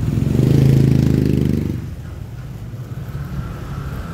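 A motorcycle engine passing close by on a busy street, rising to its loudest about a second in and fading away by about two seconds in, over a steady hum of traffic.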